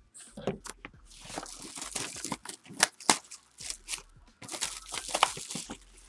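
Plastic shrink wrap being torn and peeled off a sealed trading-card box: a dense run of crinkling and crackling with sharp tearing snaps, starting about a second in and easing off near the end.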